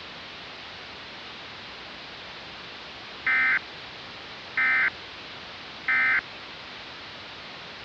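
Emergency Alert System end-of-message signal: three short data-tone bursts about one and a third seconds apart, over a steady hiss, marking the end of the alert.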